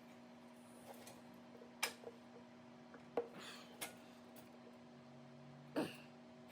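Four or five light clicks and knocks, spaced a second or more apart, over a faint steady hum.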